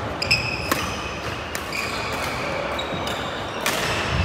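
Badminton rally: several sharp racket hits on the shuttlecock, the loudest near the end, with sneakers squeaking briefly on the wooden court floor between them.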